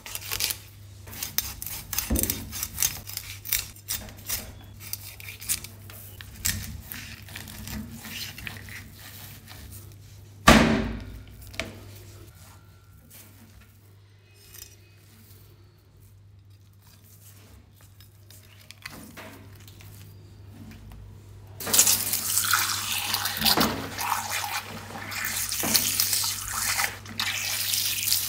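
A knife scraping along the skin of a seer fish in quick scratchy strokes, with one heavy thud of the blade on the cutting board about ten seconds in. From about two-thirds of the way through, a jet of water from a hose nozzle hisses and spatters steadily on the fish.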